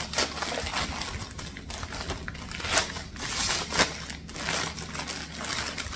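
Clear plastic bag crinkling and rustling as it is handled and opened, with irregular crackles and a couple of louder crunches a few seconds in.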